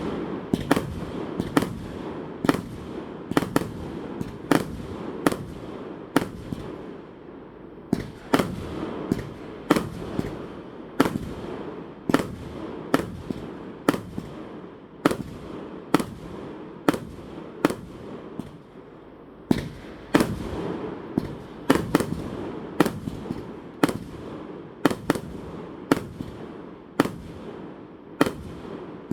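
Aerial fireworks shells bursting one after another, a sharp bang more than once a second with a rumbling echo between them.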